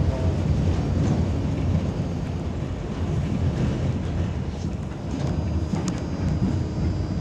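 Tatra T6A5 tram running along the track, heard from inside the passenger cabin: a steady low rumble of wheels and running gear. A faint high whine joins near the end.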